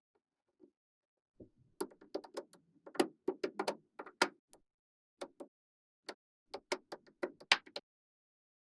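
Small magnetic balls clicking sharply as they snap together, an irregular run of quick clicks starting about two seconds in and thinning out near the end.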